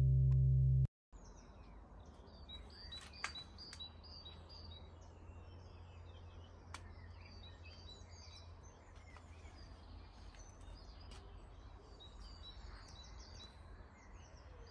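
A held chord of background music cuts off about a second in, giving way to outdoor garden ambience: many small birds chirping and twittering over a steady low rumble, with a few sharp ticks.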